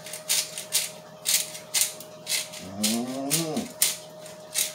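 Black pepper being shaken from a shaker into a frying pan: short rattles repeating about two or three times a second. About three seconds in comes a drawn-out low hum from a man's voice, rising in pitch.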